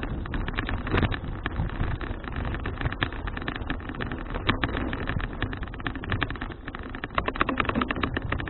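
Riding noise from a folding bicycle heard through its action camera's microphone: a steady rumble of wind and tyres with dense, fast rattling.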